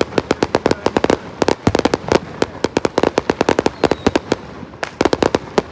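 Fireworks going off as a rapid, irregular string of sharp cracks and pops, several a second, with a short lull about four seconds in.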